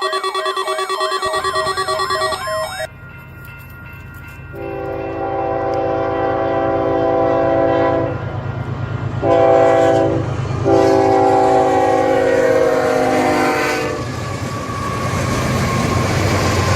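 Electronic music ends about three seconds in. Then comes a low rumble and a horn sounding a chord of several notes in blasts: a long one, a short one, and another long one, with rushing noise building toward the end.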